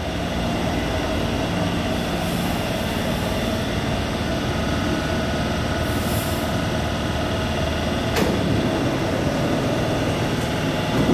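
Taipei Metro high-capacity steel-wheel train running at a station platform, a steady rumble of wheels and motors with two brief hisses of air and one sharp clunk about eight seconds in.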